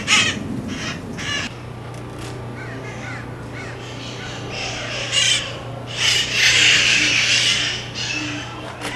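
Red-masked parakeets (cherry-headed conures) screeching, harsh squawks coming on and off, loudest and densest from about five seconds in to nearly eight. A low steady hum runs underneath from about a second and a half in.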